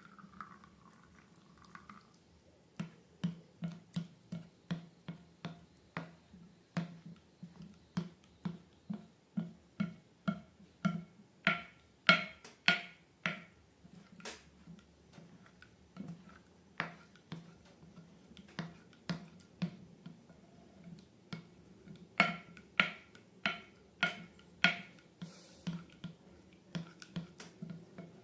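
Slime being pressed and kneaded by hand, giving sharp, wet clicks and pops at about two a second, with a short pause about halfway through.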